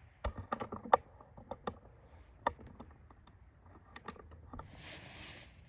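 Scattered light clicks and knocks at irregular intervals as a snowblower's electric starter and its small parts are handled during repair, then a soft hissy rustle near the end.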